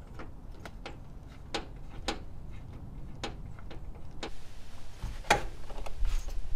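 Screwdriver clicking and ticking as it backs out the screws holding a plastic RV air-conditioner shroud, a series of short sharp clicks, with a louder knock about five seconds in as the shroud is handled.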